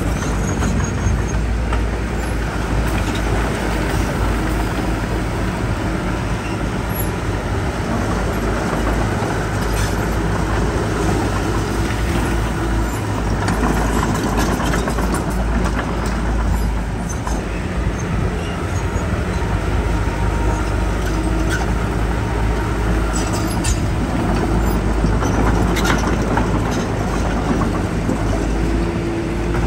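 Diesel engine of heavy earthmoving machinery running steadily under load, with scattered short metallic knocks and clanks.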